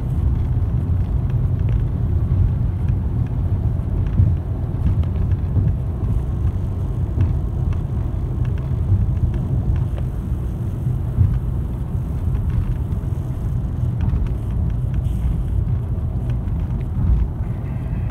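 Steady low rumble of road and engine noise inside a car cruising at expressway speed.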